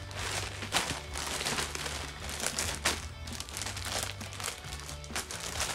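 Plastic packaging bag crinkling and rustling in many short crackles as clothes are handled in it, over background music with a low bass line.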